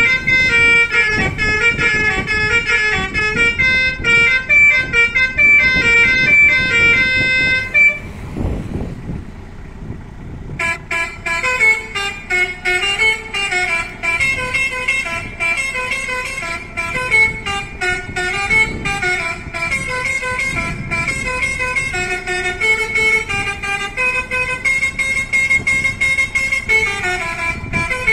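A 500-watt electric basuri musical horn on a Mitsubishi L300 playing a tune of quickly changing notes over a low rumbling noise. The tune breaks off about eight seconds in and starts again about two seconds later.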